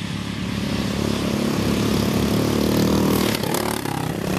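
Engines of racing riding lawn mowers running at speed, getting louder over the first three seconds as one passes close, then dropping off a little near the end.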